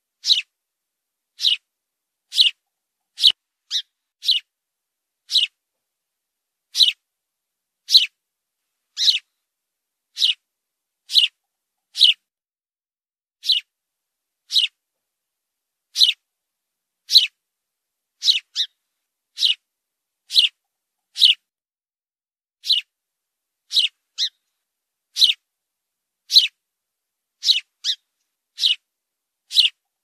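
House sparrow chirping: short, high single chirps about once a second, now and then two in quick succession, with silence between.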